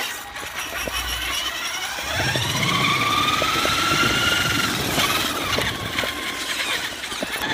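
Radio-controlled monster truck's motor and drivetrain whining, rising in pitch as it speeds up, holding, then dropping about five seconds in and climbing again near the end, with small ticks mixed in.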